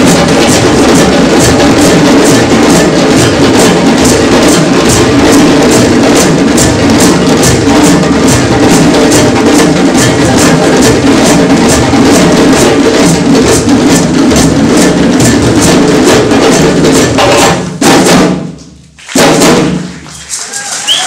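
West African drum ensemble of djembes and dunun bass drums playing a fast, dense rhythm together, stopping near the end with a few last strokes that ring out.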